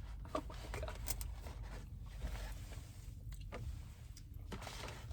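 Faint eating sounds: chewing and soft rustling of food and wrapping, over a low steady rumble.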